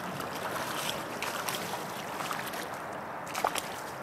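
Creek water rushing steadily past concrete current-breakers, with scattered small clicks and one sharper knock about three and a half seconds in.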